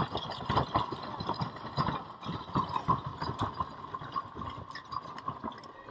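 Horse-drawn covered wagon with iron wheels and its team moving over rough ground: a continual irregular clatter of knocks and clicks from the wagon and the horses' hooves.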